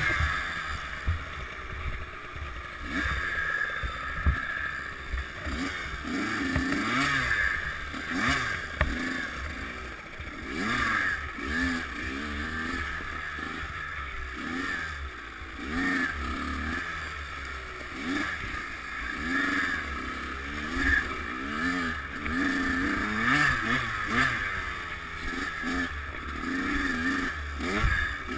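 Kawasaki KX100 two-stroke dirt bike engine revving up and falling back over and over as it is ridden hard along a rough snowy trail. A few sharp knocks come in from the bike over bumps.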